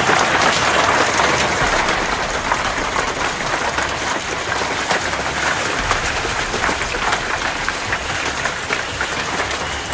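Storm downpour of heavy rain and hail pelting surfaces: a dense, steady hiss packed with many sharp small hits.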